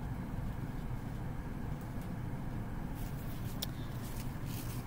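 Steady low room hum, with brief soft rustles of cloth being handled in the last couple of seconds.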